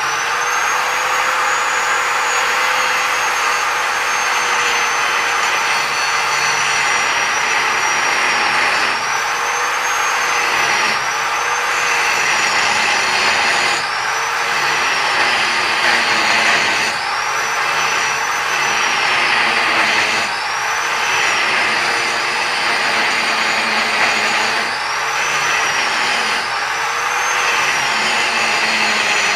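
Angle grinder with a hard grinding disc running, first spinning freely, then grinding on its edge into a 4140 steel die. From about eight seconds in, its motor whine dips in pitch again and again as the disc is pressed into the steel, and recovers between passes.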